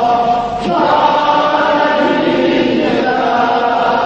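Chanted singing of an Azerbaijani elegy (mersiyye) for Imam Hussain, a slow melody in long held notes that moves to a new note about half a second in.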